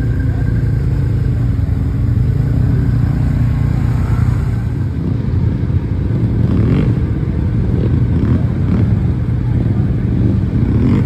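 Off-road side-by-side (UTV) engines running, mostly a steady deep drone from a machine close by, growing rougher and less even about halfway through.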